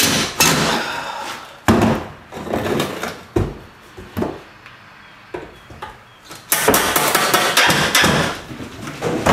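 Cordless drill driving screws into a wooden frame in short runs, with sharp knocks of wood on the workbench. The longest and loudest run comes in the last few seconds.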